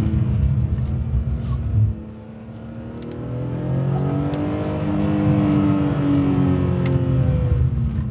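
Car engine heard from inside the cabin while lapping a wet track. The engine note drops as the throttle is lifted about two seconds in, then the revs rise for a couple of seconds and ease off again near the end.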